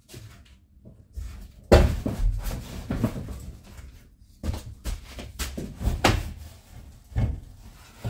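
Irregular knocks and thuds on the bare metal body and floor of a van's empty cargo box as a person climbs in and handles the panels, the loudest knock about two seconds in.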